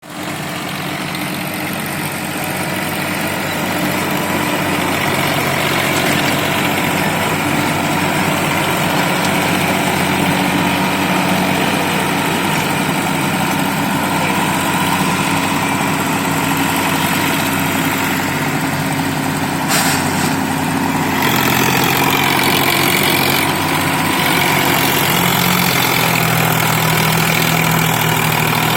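Heavy diesel engine running steadily at idle. About two-thirds of the way through its pitch steps up and a wavering higher whine joins in.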